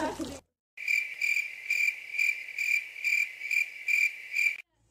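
Cricket chirping: a steady high trill that swells and fades a little over twice a second. It is cut in between two patches of dead silence, like the "crickets" sound effect.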